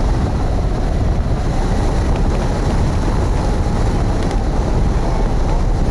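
Wind buffeting the microphone of a camera mounted on a hang glider's wing in flight: a loud, steady rush of wind noise, heaviest in the low rumble.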